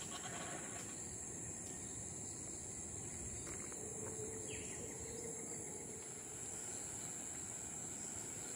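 Steady, high-pitched drone of rainforest insects, with a short faint falling chirp about halfway through.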